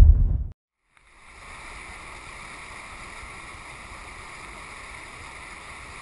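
A deep boom dies away in the first half second. After a brief silence, a small rocky stream rushes steadily over stones.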